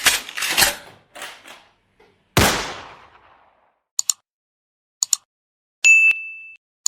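Gunshot sound effects: three quick shots, then a loud boom that dies away slowly, followed by two pairs of short clicks and a brief high beep near the end.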